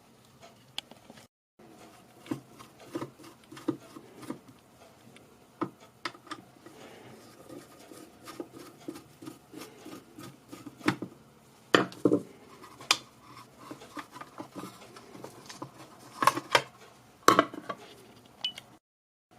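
Irregular clicks, taps and clatter of small hard plastic and metal parts being handled, with a few louder knocks in the second half.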